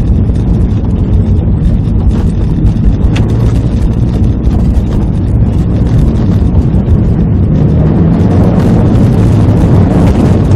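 Subaru WRX STI's turbocharged 2.0-litre flat-four engine and road noise heard from inside the cabin while driving: a loud, steady drone that swells slightly about eight seconds in.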